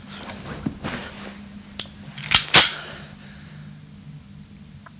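Three sharp cracks from a prop pistol fired during the take, the last two close together near the middle and the last the loudest, over a steady low hum.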